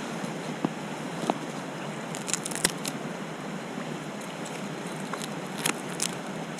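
Mountain stream water rushing steadily, with a few short sharp clicks and taps over it: a small cluster about two and a half seconds in and a pair near the end.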